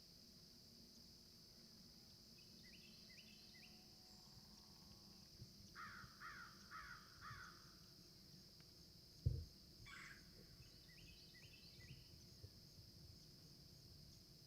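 Faint woodland ambience: a steady high insect drone, with birds calling, including four quick falling calls in the middle and short runs of rapid notes early and late. A single dull thump about nine seconds in is the loudest sound.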